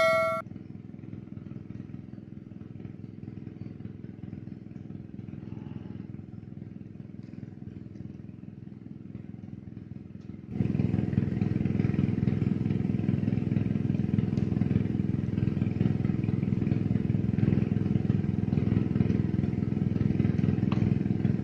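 An engine running steadily at a constant speed, a low drone. About halfway through it jumps abruptly louder and fuller, then holds steady.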